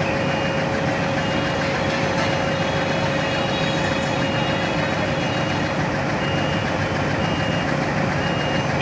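Diesel locomotive engine running steadily with a constant droning hum. Faint short high beeps repeat about every one and a half seconds over it.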